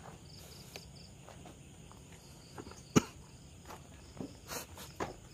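Footfalls and knocks on a wooden ladder-stair as people climb it, with one sharp knock about three seconds in and a few more near the end. Insects chirp faintly in the background.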